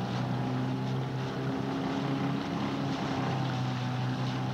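Outboard motor of a coaching launch running steadily while under way, a constant engine hum over a steady hiss.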